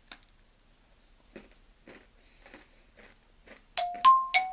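Faint crunching as a butter biscuit is bitten into and chewed, a few short crunches spread over several seconds. Near the end, bright ringing chime notes begin, struck in quick succession about three times a second, and they are the loudest sound.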